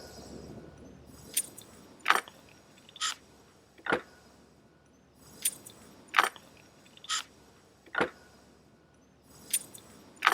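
Small metal tools and wiring parts being handled while a plug is wired up: a series of about ten sharp clicks and clinks, irregularly spaced, roughly one a second.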